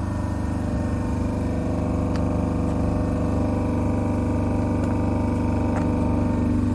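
KAESER oil-free piston compressor running steadily, with a couple of faint ticks over the hum.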